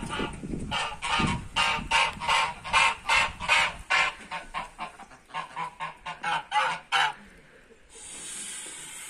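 White domestic geese honking over and over, about two or three calls a second, stopping about seven seconds in.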